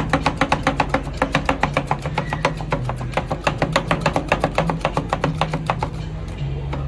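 Metal spatula rapidly chopping ice-cream mix on the frozen steel plate of a rolled-ice-cream pan: a quick clatter of several strikes a second that thins out and stops about six seconds in. Background music plays underneath.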